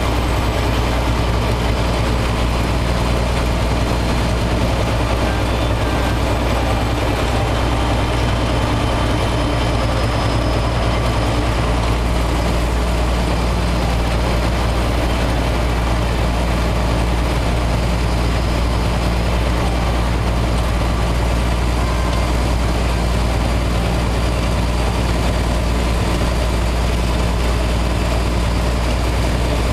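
Heavy truck's engine running steadily at road speed, heard from inside the cab, with a deep, even drone under a constant wash of road noise.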